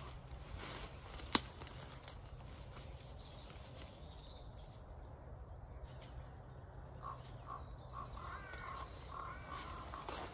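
Rustling of dead leaves and hedge twigs as a wildlife camera is set up low on a hedge trunk, with one sharp click about a second and a half in. Short bird chirps come in the second half.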